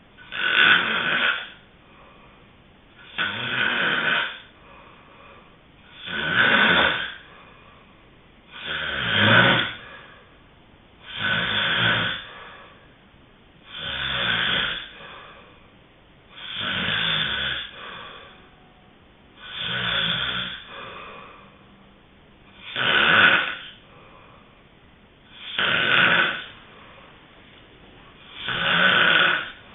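A sleeping person snoring steadily, one loud snore about every two and a half to three seconds, each lasting about a second, with quieter breathing between them.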